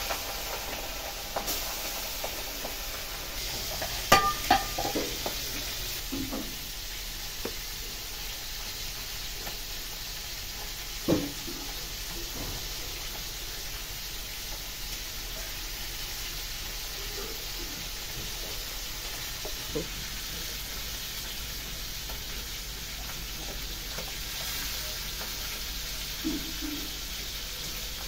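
Steady hiss under a few scattered knocks and clinks of steel and aluminium kitchen vessels, the loudest a cluster about four seconds in and another about eleven seconds in.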